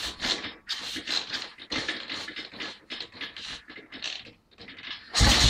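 Ariel single-cylinder motorcycle engine being turned over in a starting attempt without running: irregular scratchy mechanical clatter, then a loud, deep burst near the end.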